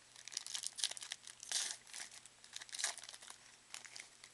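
Foil wrapper of a 2008 Upper Deck Masterpieces football card pack being torn open and crinkled by hand: a run of irregular crackles that dies down a little before the end.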